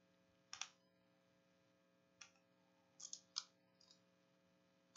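Near silence with a handful of faint clicks, about half a second in and a cluster around three seconds: fingers handling a hard plastic encased card holder.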